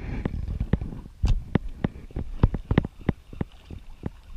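Irregular sharp clicks and taps, two or three a second, over a low rumble that fades after the first second or so.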